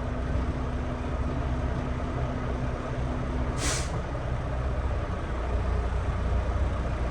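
Semi truck's diesel engine idling steadily, with one short hiss of air from the air brakes a little past halfway through.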